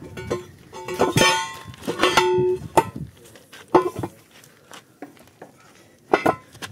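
Steel truck wheel rim and its split lock ring clanking as they are worked into a tire by hand: a series of sharp metal knocks, several leaving a short ringing tone.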